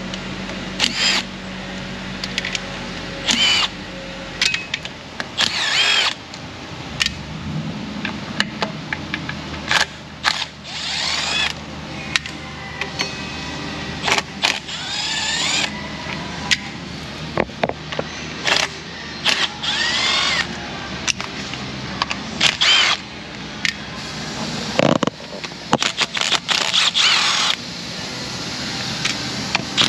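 Cordless power driver with a socket backing out timing-cover bolts in many short runs, its motor whine rising and falling in each, with sharp clicks between runs.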